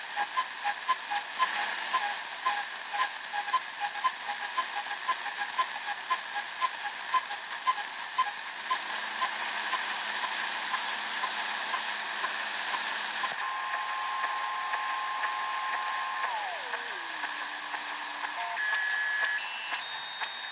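Shortwave radio receiver (Eton E5) static with an odd pulsing signal: short beeps about three a second over steady hiss. About two-thirds of the way through, the hiss narrows and a steady whistle takes over. The whistle glides down in pitch, then jumps up in steps near the end.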